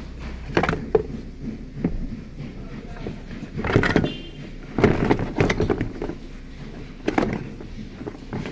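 Irregular knocks, clunks and scraping of metal and plastic as a car's A/C compressor, its bolts and pipes already undone, is worked loose and pulled out from under the engine bay, with the busiest clatter around the middle.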